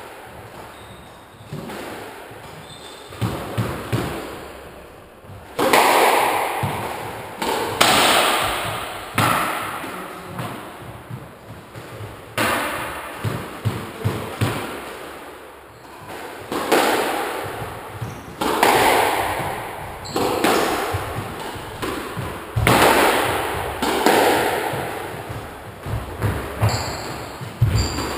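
Squash rally: the ball smacking off rackets and the court walls. Each hit is a sharp crack with a long ringing echo from the enclosed court, coming about every one to two seconds, sparse at first and then steady from a few seconds in.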